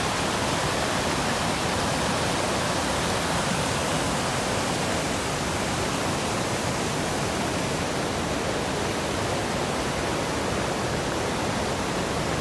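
Fast-moving floodwater rushing steadily.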